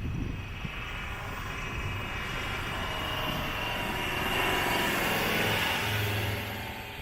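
A 4x4 off-road vehicle driving on sand: engine and tyre noise that swells to its loudest about four to six seconds in, then eases off.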